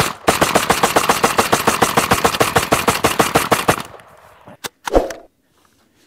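Fostech Origin 12 semi-automatic 12-gauge shotgun fired in a very fast string, about eight shots a second, stopping just before four seconds in. Two separate knocks follow about a second later.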